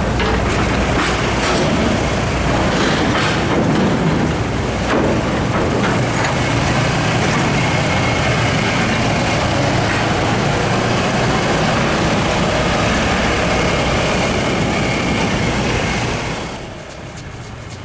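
Loud, steady rumble of a running vehicle engine mixed with noise like wind or rushing air. About a second before the end it gives way to music.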